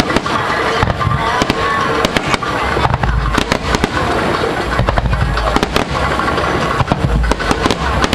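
Aerial fireworks display going off: a dense, continuous crackle of many small bangs, with deep booming bursts about three, five and seven seconds in.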